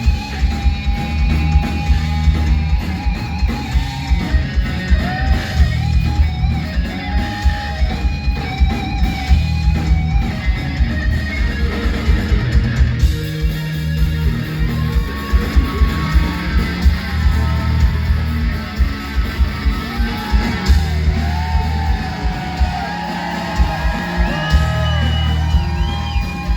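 Heavy metal with a lead electric guitar solo: held, bent notes with wide vibrato over a fast, pounding drum and bass rhythm.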